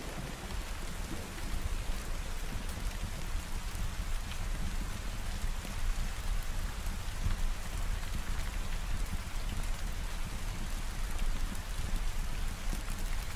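Steady, heavy rain falling, with a low rumble underneath, swelling up over the first second or so and then holding even.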